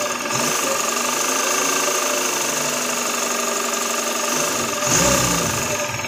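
VW Gol's carburetted 1.6 CHT four-cylinder engine idling with a tec-tec tapping that sounds like valve noise. The owner traces it instead to play in the clutch shaft support, which he reckons must be a seized bushing. There is a brief low rumble about five seconds in.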